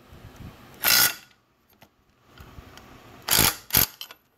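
Handling noise as metal breather-box parts are moved about on a metal workbench: a brief scraping about a second in, and another near the end, followed closely by a shorter one.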